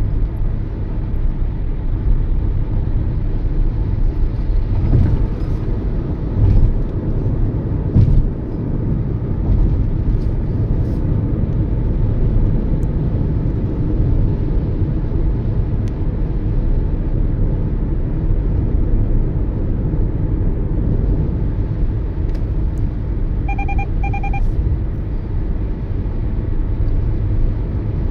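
Steady road and engine rumble of a car, a Toyota Yaris, driving at speed. Two short beeps sound about three-quarters of the way through.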